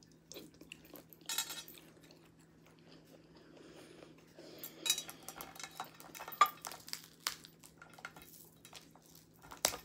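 Close-up chewing of a shrimp, then a run of sharp clicks and clinks as crab legs are picked up and handled on a serving platter, the loudest about halfway through.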